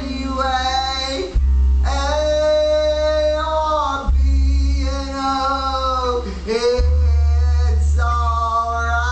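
Live music: a man singing long held notes, with acoustic guitar and an upright double bass holding long low notes underneath.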